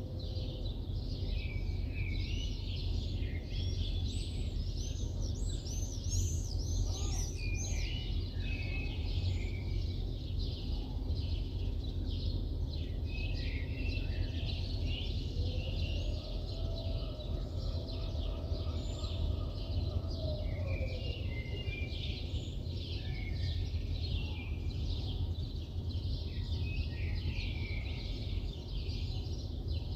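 Many birds chirping and calling over a steady low city hum. Midway a steady droning tone rises in, holds for about five seconds, and falls away again.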